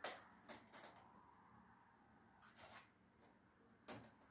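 Faint clicks and scrapes from handling plastic cable trunking while measuring it: a cluster of clicks in the first second, a brief scrape about two and a half seconds in, and a single sharp click near the end.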